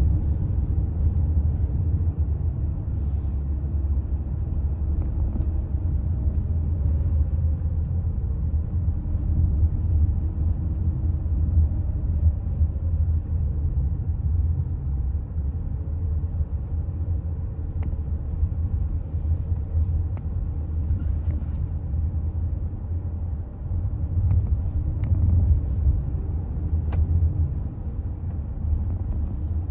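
Toyota Alphard hybrid minivan on the move: a steady low road rumble, with a faint hum from the drivetrain slowly rising and falling in pitch.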